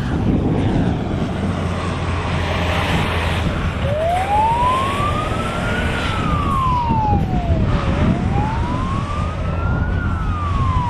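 Fire engine siren wailing, slowly rising and falling twice, starting about four seconds in, over the drone of a low-flying propeller aircraft's engine.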